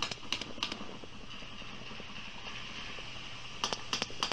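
Underwater recording of a sperm whale coda of regularly spaced clicks, the Galapagos 'six regular' (6R) type: the last clicks of one coda, about three a second, in the first second, then steady hiss of sea noise, then another run of evenly spaced clicks starting near the end.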